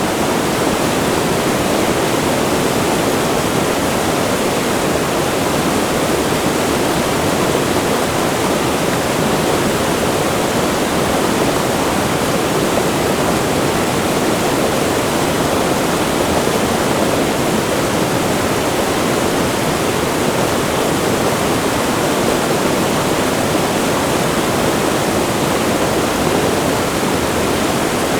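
Wide river rushing close to a waterfall: a steady, unbroken roar of falling and churning water, fullest in the low middle.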